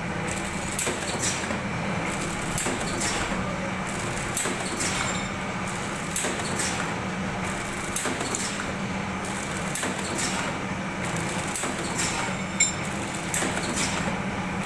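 Vertical form-fill-seal pouch packing machine running: a steady mechanical hum with repeated clacks as it cycles, roughly one or two a second, and one sharper click near the end.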